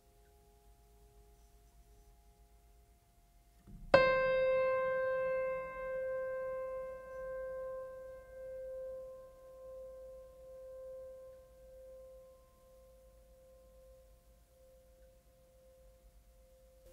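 Background music: one piano-like keyboard note struck about four seconds in, ringing on and slowly fading away with a wavering swell, after near silence.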